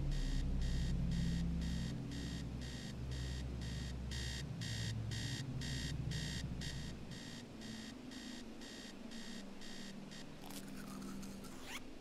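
Digital bedside alarm clock beeping, high-pitched beeps repeating evenly several times a second, stopping near the end. A low drone underneath fades out about two-thirds of the way through.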